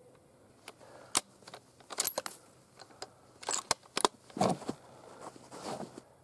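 A string of sharp metallic clicks and rattles from a bolt-action rifle being handled between shots, with two longer scraping sounds about four and a half and five and a half seconds in.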